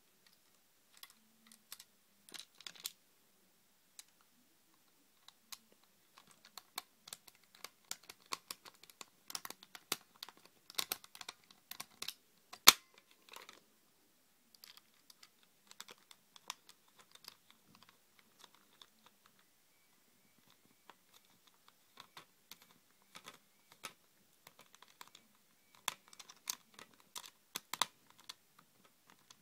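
Irregular small clicks and scrapes of a screwdriver and plastic-and-metal airsoft rifle parts being handled while a screw is driven in by the bolt, with one sharp louder click about twelve seconds in.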